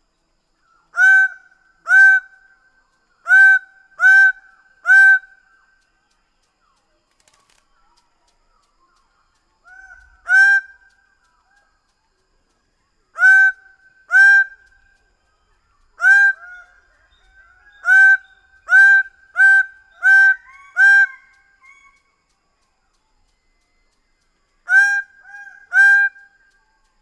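Greater bird-of-paradise calling: loud, short honking calls given in bouts of one to six, with pauses of a few seconds between bouts.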